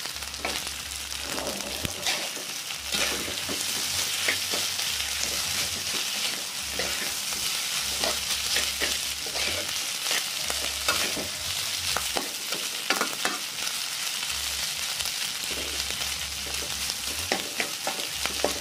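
Nasi goreng (rice with petai beans) sizzling steadily in an oiled wok while a metal spatula stirs it, scraping and clinking against the pan many times.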